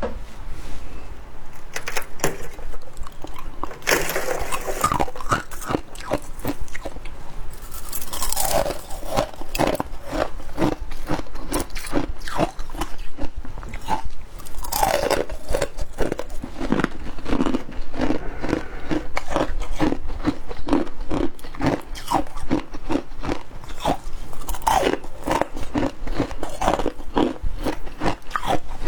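Close-up crunching and chewing of frozen humidifier icicles: hard bites followed by runs of rapid crisp crunches.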